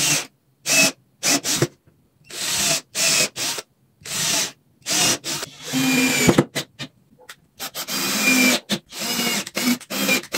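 Handheld power drill run in many short stop-start bursts, the trigger pulled again and again, most runs under a second and one longer run about six seconds in.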